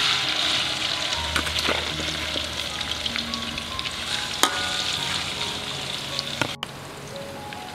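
Hot oil sizzling in a wok as food fries in it, strongest at first and slowly easing off. A metal spatula stirs the food, with occasional clicks and scrapes against the wok.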